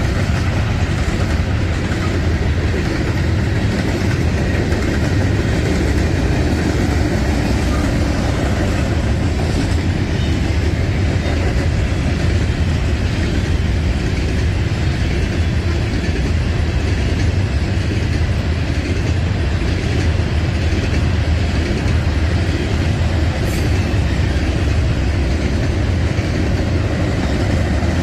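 A train's cars rolling past close by: steady, loud wheel-on-rail noise with a heavy low rumble and no letup.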